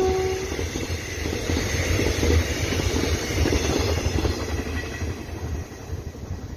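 The tail of a train horn, sliding down in pitch as the train passes, dies out about half a second in. Then a locomotive-hauled passenger train's wheels and coaches rumble and clatter past on the rails, fading as the train moves away.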